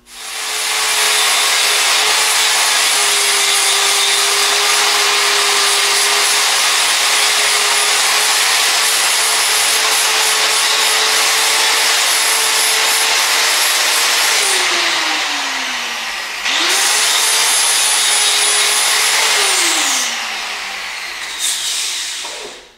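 Angle grinder grinding the top off a fresh weld bead on steel, its motor whining steadily for about fourteen seconds before winding down. It starts up again a couple of seconds later, grinds for about three seconds more and spins down.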